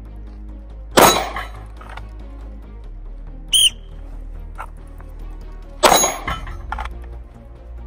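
Two pistol shots about five seconds apart, each ringing off with a metallic clang of the steel plate. Between them, a short sharp whistle blast gives the start signal for the next draw.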